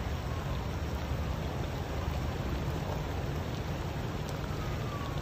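Floodwater rushing steadily, with a deep rumble underneath.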